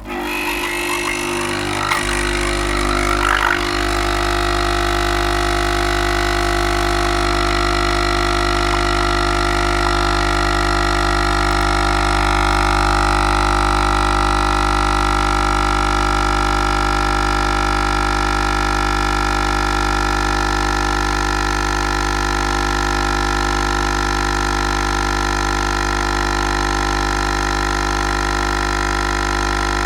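Coffee machine brewing a long coffee: after some irregular noise over the first few seconds, it settles into a steady, even hum.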